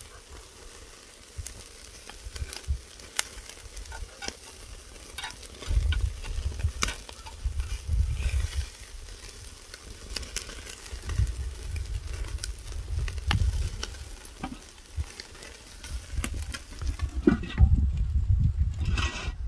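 Pork neck sizzling over oak charcoal on a small grill, crackling with frequent sharp pops. Low rumbles come and go about a third of the way in and again near the end.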